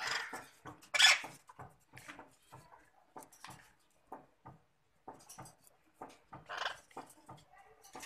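Caged Alexandrine parakeets giving short, harsh squawks and chatter in scattered bursts, the loudest and sharpest about a second in.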